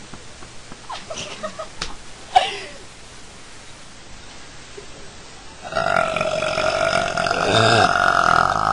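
A young woman's long, drawn-out belch, lasting about three seconds at a fairly steady pitch, begins a little past halfway through. Before it come a few faint short sounds and a sharp click about two and a half seconds in.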